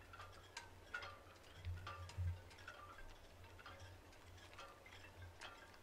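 Faint background music: soft ticks and short high notes about twice a second over a low steady hum.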